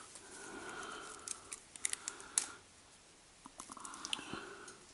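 Faint, scattered light clicks and ticks of thin copper conductor strips from track lighting being handled in the hands, with a near-quiet pause in the middle.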